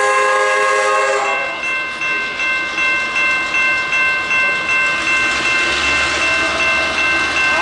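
Level crossing bells ringing in a steady repeating pattern. A diesel locomotive horn sounds for about a second and a half at the start. About six seconds in, the lead diesel locomotive of the loaded works train powers up to depart, adding a low engine rumble.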